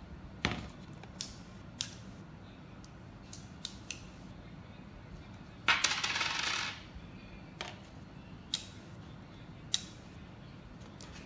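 Small magnetic metal pieces of a polar pen clicking together in scattered single snaps, with a rattle of pieces lasting about a second near the middle.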